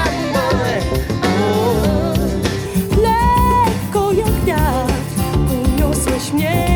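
A pop song with a singing voice and a steady bass line, played back through a portable Bluetooth speaker.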